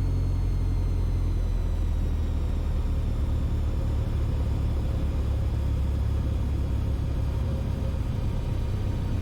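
Mooney M20E's engine and propeller heard from inside the cabin as a steady low drone on final approach. Its faint higher tones ease slightly lower about two seconds in.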